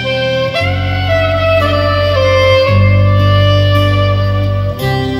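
Music playing through a pair of vintage Diatone DS-251 three-way bookshelf speakers with Alnico magnets: a sustained, gliding melodic lead over steady bass notes that change every couple of seconds.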